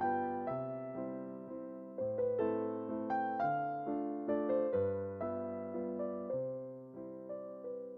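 Background music: a gentle solo piano (or electric piano) melody over decaying chords.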